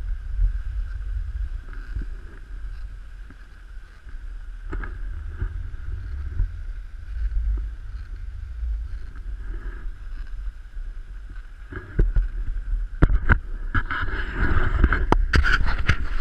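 Wind buffeting the microphone over the steady hiss of a dog sled gliding over snow. From about three-quarters of the way in, a run of sharp knocks and rattles as the camera is handled and turned.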